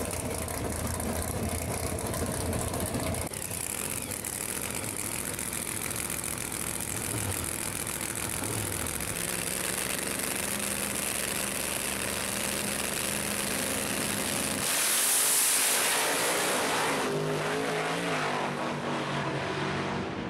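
Drag racing cars' big engines running in the staging lanes with a deep, uneven idle. About fifteen seconds in, a pair launches at full throttle in a loud blast, then the engines' pitch steps through the gears as the cars pull away down the track.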